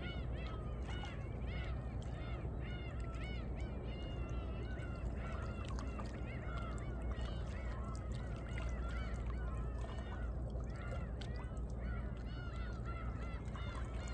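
Seawater lapping and sloshing in the crevices between shoreline rocks over a steady low surf rumble, with a dense, continuous chatter of short chirping sounds layered over it.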